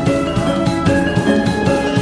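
Background music with a steady beat: pitched melodic notes over regular drum strikes.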